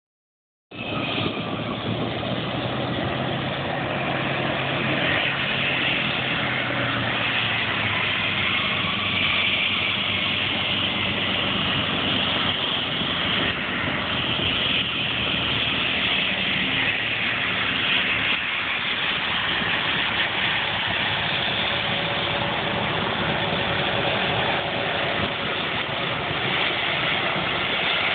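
Military aircraft engines running as the planes taxi: the turbofan jet engines of an A-10 Thunderbolt II and the piston engine of a P-51 Mustang. The noise is steady and loud with a strong high hiss throughout, and a low engine drone in the first several seconds that then fades.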